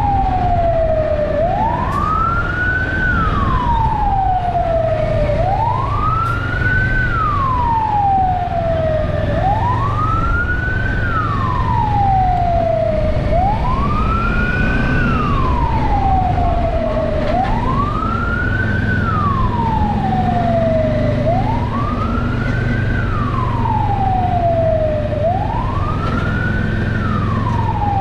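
Fire truck siren wailing, a quick rise then a slow falling sweep repeating about every four seconds, seven times over, with a steady low rumble underneath.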